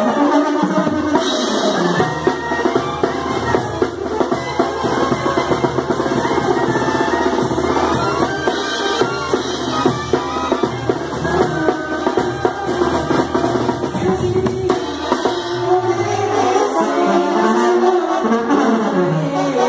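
Live Mexican banda music: trombones and trumpets playing over a drum kit and a low bass line, an instrumental passage with a quick steady drum beat.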